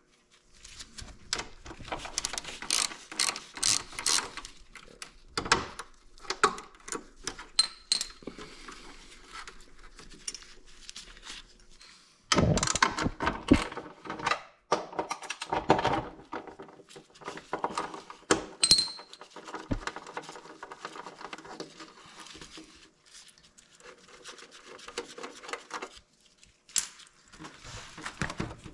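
Ratchet wrench clicking in several runs as 8 mm bolts are backed out of a motorcycle's chrome front-wheel trim ring, with small metallic clinks of the loose bolts and trim being handled.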